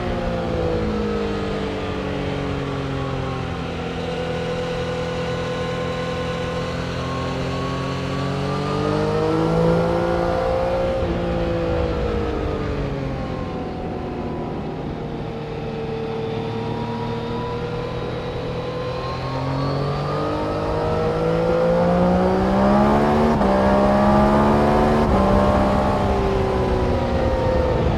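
Several engines running at once on a race circuit, overlapping, their pitch climbing as they accelerate and dropping as they slow. The sound grows louder from about twenty seconds in.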